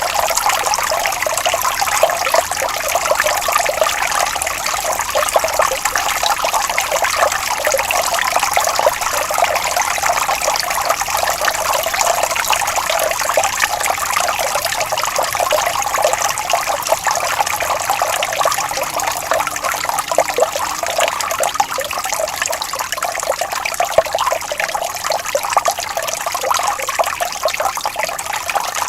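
Water flowing and trickling steadily over stones, a dense, even babble with no low rumble.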